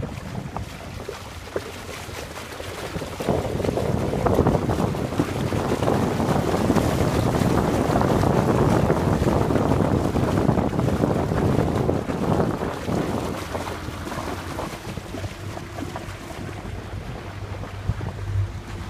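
Wind buffeting the microphone and water rushing past a small boat under way, loudest through the middle and easing after about twelve seconds. A steady low hum comes in near the end.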